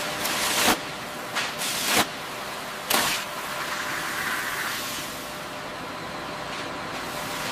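Steady hiss with three short, louder bursts of hiss in the first three seconds, like air or spray noise in a workshop.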